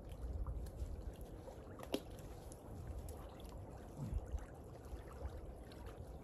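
Small waves lapping at a lakeshore, with low wind rumble on the microphone. There are scattered small ticks and one sharp click about two seconds in.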